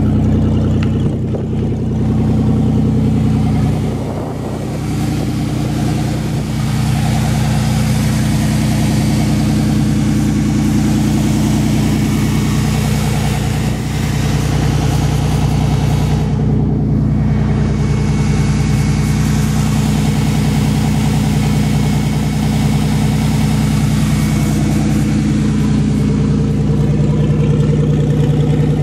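1989 Oldsmobile 98's 3800 V6 running steadily just after a cold start, with heavy oil in it after sitting about a month.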